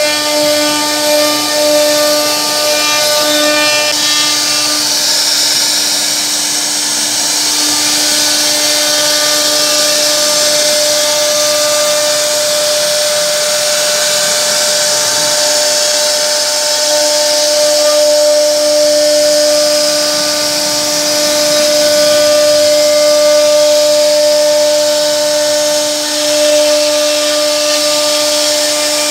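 CNC router spindle running with a steady high whine while its bit cuts into a wooden panel, with a continuous cutting hiss that swells and eases as the bit moves through the wood.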